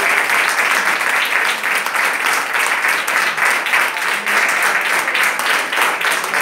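Audience and cast applauding: dense, steady clapping from many hands.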